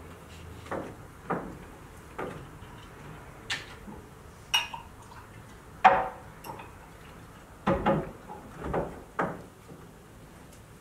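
Glasses and a bottle clinking and knocking on a table as drinks are poured, in a dozen scattered light knocks, with a sharper ringing glass clink about six seconds in.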